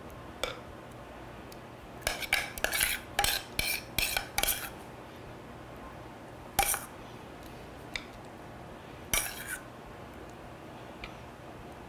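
Metal spoon scraping and clinking against a stainless-steel saucepan and an earthenware pot as thick clotted cream (qishta) is spooned out. A quick run of clinks comes a couple of seconds in, a single clink near the middle, and another short run near the end.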